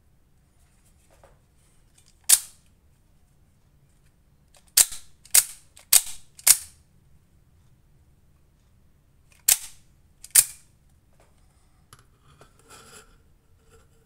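Spring-loaded out-the-front (OTF) knife firing its blade out and back in with the slide button, each stroke a sharp snap. There are seven snaps: one alone, then a run of four about half a second apart, then two more about a second apart. The knife is being cycled after its defective slide button was repaired.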